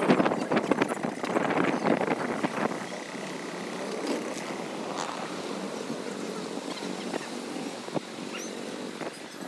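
Busy city street: traffic noise and passers-by, with rough, uneven noise in the first few seconds.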